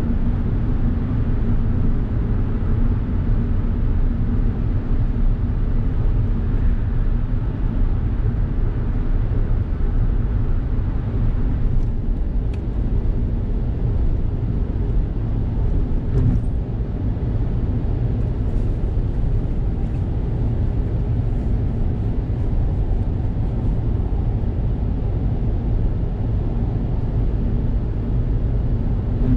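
Steady road and engine noise of a Suzuki Hustler heard from inside the cabin while it cruises on an expressway. The car starts out in a tunnel. About twelve seconds in, the noise gets a little thinner in its upper range as the car comes out into the open.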